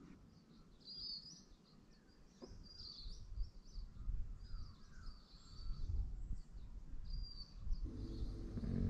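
Birds chirping and calling at a bushland river: short high chirps repeated every second or so, with a few falling whistles, over a low rumble. A short low pitched sound comes near the end.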